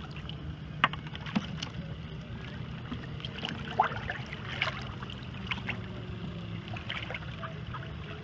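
Lake water lapping and splashing close to the microphone as mallard ducks paddle around, over a steady low rumble, with scattered sharp clicks and small splashes, the loudest about a second in and again near four seconds in.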